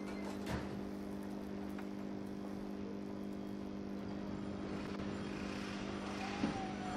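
Steady low hum made of several held tones, with a faint click about half a second in and a short knock near the end.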